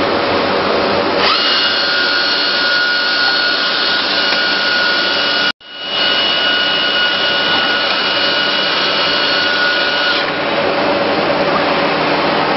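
Biesse Rover 23 CNC machining centre running, with a loud, steady rush of air through its extraction. About a second in, a high steady whine from the router spindle comes in over it and stops near the end. The sound breaks off for an instant midway.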